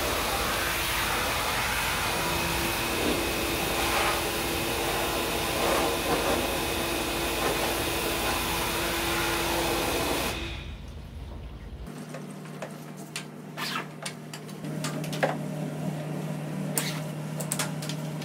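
High-pressure washer running and spraying water through an air conditioner: a steady hiss with a motor hum. It cuts off suddenly about ten seconds in, leaving a low hum and scattered clicks and knocks.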